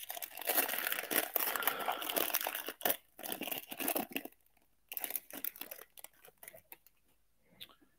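Foil trading-card pack wrapper of a 1998 Topps Chrome football pack being torn open and crumpled: dense crinkling and tearing for about four seconds, then a few shorter crinkles.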